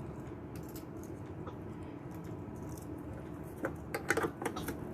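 Light clicks and rattles of plastic parts being handled while a Keurig coffee maker is taken apart by hand. The clicks cluster near the end, over a steady low room hum.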